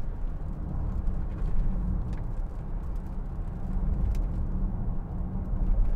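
Cabin noise of a 2013 Range Rover 3.0 TDV6 diesel on the move: a steady low rumble of engine and road, with a couple of faint clicks.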